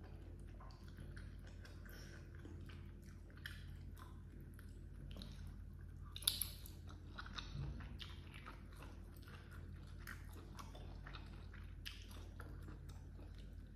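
Close-miked chewing and biting of grilled rice with baby squid and petai: a run of short wet clicks and crunches from the mouth, the sharpest click about six seconds in, over a steady low hum.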